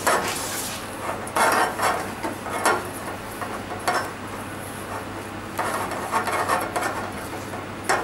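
Silicone spatula scraping and stirring granulated sugar around a stainless steel saucepan as the sugar starts to melt into caramel. The strokes are irregular and gritty, over a steady low hum.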